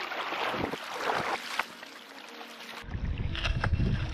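Kayak paddle strokes, the blades splashing into the water several times. After about three seconds this gives way to wind buffeting the microphone, with water slapping against the moving kayak's hull.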